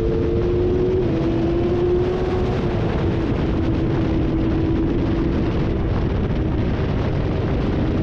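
Motorcycle engine running hard at high revs, its note held steady and sagging slowly in pitch, under heavy wind rush from riding at around 130–160 km/h.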